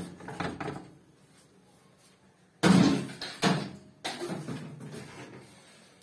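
Dishwasher's wire bottom rack being pulled out and set down: a sudden clatter and knock about two and a half seconds in, then two more knocks within the next second and a half, each fading out.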